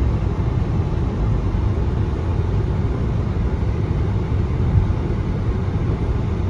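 Steady low rumble of a car driving, road and engine noise picked up by a dash cam inside the car.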